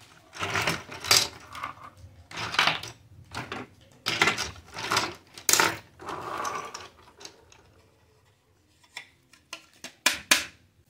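Hard plastic toy playset pieces clattering and knocking together as they are picked through and lifted from a pile, a run of rattles through the first seven seconds, then two sharp clicks near the end.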